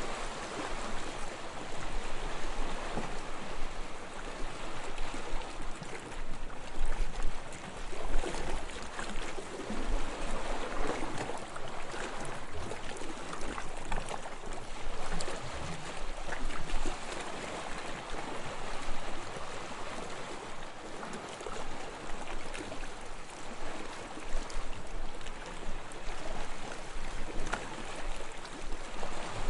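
Gentle waves lapping and splashing: a continuous wash of water that swells and falls irregularly.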